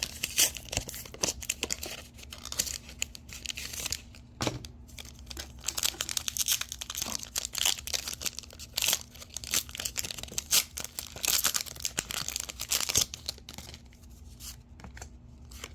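Foil wrapper of a Pokémon TCG Mega Evolution booster pack being torn open and crinkled: an irregular run of crackles and rustles that thins out near the end.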